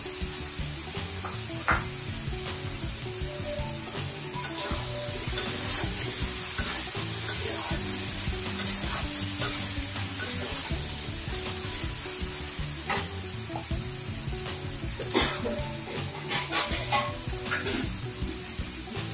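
Vegetables with freshly added tomato sizzling in oil in a pan while being stirred, with a spatula scraping and knocking against the pan now and then.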